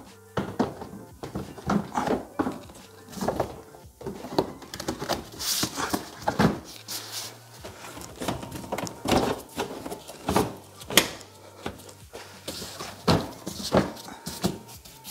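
Plastic front bumper and grille trim of a BMW X5 being pressed and worked back into place by hand: irregular clicks, knocks and rustles of plastic parts and clips seating, several a second at times.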